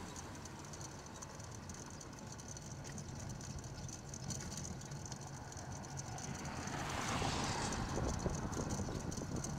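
Passing traffic picked up by a bicycle-mounted camera over a steady low hum of road and wind noise. About seven seconds in, a car goes by close in the next lane, its tyre noise swelling and fading.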